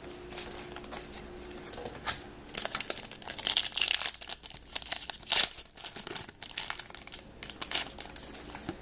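Wrapper of a trading-card pack crinkling and tearing as it is opened, in irregular crackling bursts that begin about two seconds in.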